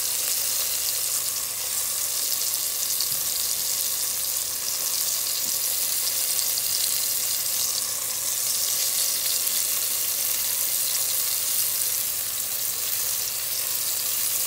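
Flour-dredged veal pieces frying in hot olive oil in a Dutch oven: a steady, even sizzle.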